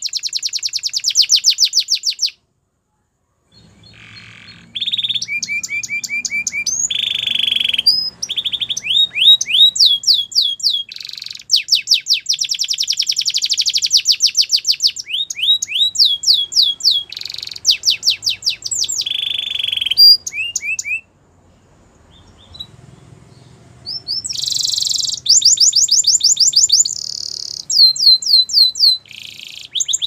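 Yellow domestic canary singing a long song of rapid trills, each a run of quickly repeated sweeping notes. The phrases change speed and pitch from one to the next, with a short break about two seconds in and a quieter pause about two-thirds of the way through.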